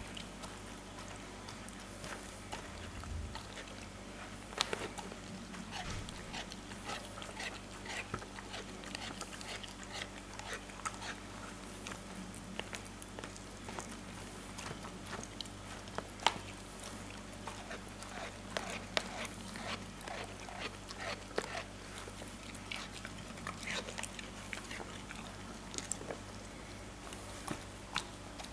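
A dog licking food crumbs off a towel: a long run of irregular wet smacks and tongue clicks over a faint steady hum.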